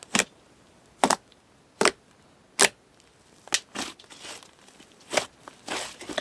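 Soft, chewy clay slime being pressed and squeezed by hand, giving short sharp pops and crackles about once a second, coming closer together near the end.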